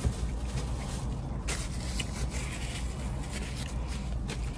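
Eating sounds in a car: chewing and handling food, heard as scattered small clicks and scrapes over a steady low hum.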